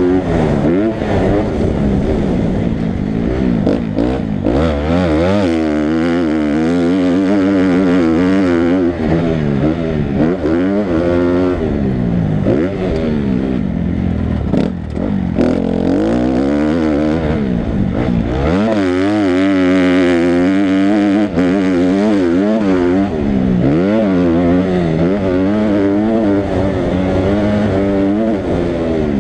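Motocross bike engine under hard riding, its pitch climbing and dropping again and again as the throttle is opened and shut and the gears change.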